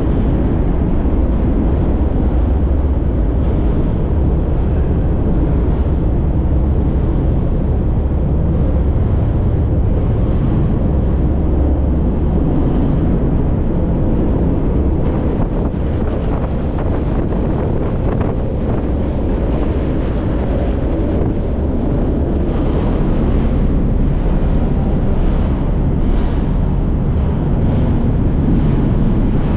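Steady rumble and rattle of a freight train rolling along, heard from inside a freight car, with wind on the microphone.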